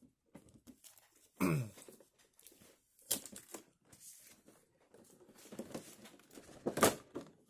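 Hands handling clear plastic toy packaging: crinkling and rustling of a plastic sleeve and a plastic-windowed figure box, with scattered clicks and a few sharper knocks, the loudest near the end. About a second and a half in there is a brief squeak that falls in pitch.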